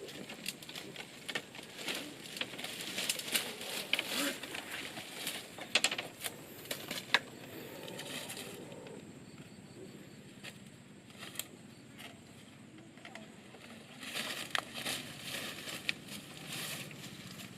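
Irregular rustling and crackling with scattered sharp clicks and snaps, easing off for a few seconds in the middle before picking up again.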